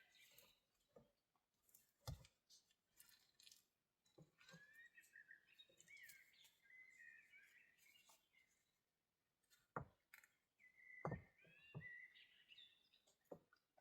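Faint bird chirping in runs of short gliding calls, with a few quiet knocks scattered between them.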